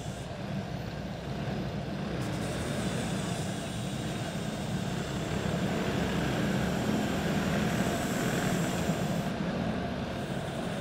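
Single-cylinder four-stroke clone go-kart engines running at low speed, a steady drone that grows a little louder midway as the karts roll around on a pace lap.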